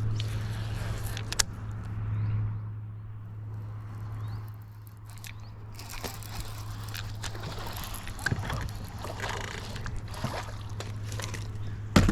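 Water sloshing and trickling around a fishing boat over a steady low hum, with a few sharp clicks, the loudest near the end.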